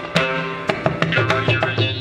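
Instrumental background music: repeated plucked notes over a regular drum beat, in an Indian classical style.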